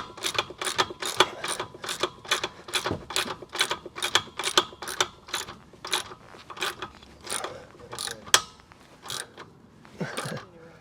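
Hand socket ratchet clicking at about three clicks a second as it runs a mounting bolt in; the clicking stops about two seconds before the end, followed by one softer knock.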